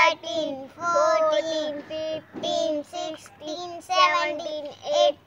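A young girl singing without accompaniment, short sung phrases with held notes that slide in pitch.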